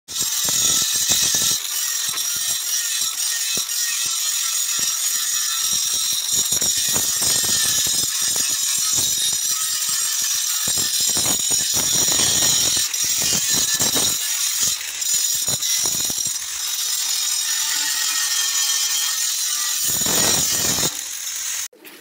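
Angle grinder worked against the steel outer shell of a concrete mixer drum: a continuous high whine with scraping and rattling as the disc bites the metal. It stops abruptly near the end.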